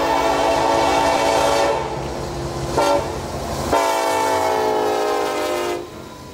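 Multi-note air horn of a Norfolk Southern SD70ACe diesel locomotive blowing: a long blast that ends under two seconds in, a brief toot about three seconds in, then another blast of about two seconds that stops abruptly near the end.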